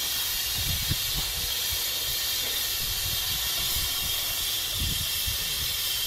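Compressed gas hissing steadily from a cylinder through the fill tube into a high-altitude balloon during inflation, with a couple of low rumbles of wind on the microphone.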